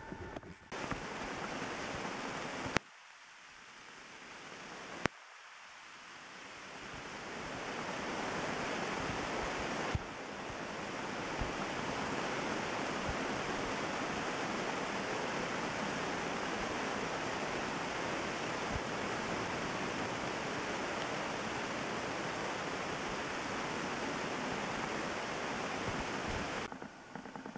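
Heavy rain pouring steadily in a thunderstorm: a dense, even hiss. It breaks off with a click three times in the first ten seconds, quieter at first and then building, before holding steady and dropping away near the end.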